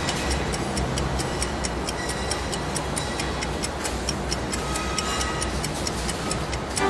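Electronic soundtrack music built on a steady clock-like ticking, several ticks a second, over a low drone, with pitched notes coming in near the end.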